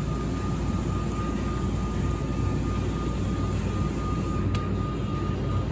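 Steady background hum of a convenience store: a low rumble of machinery with a thin steady high tone over it, and a faint click about four and a half seconds in.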